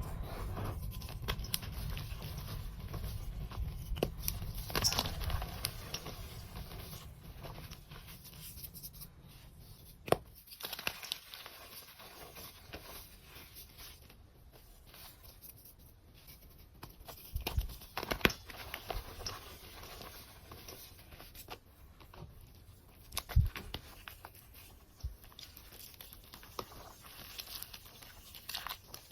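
Blocks of reformed gym chalk being crumbled and crushed by hand: dense, irregular crunching and crackling with scattered sharp snaps, a few louder crunches about a third, two thirds and four fifths of the way through.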